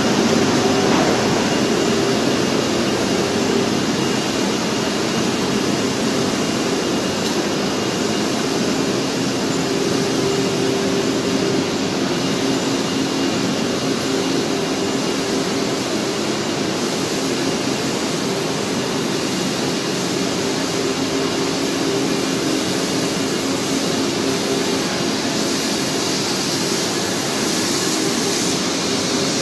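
UV roller-coating and curing line for engineered flooring running: a loud, steady rushing noise of machinery and air handling with a steady hum underneath, getting a little hissier in the last few seconds.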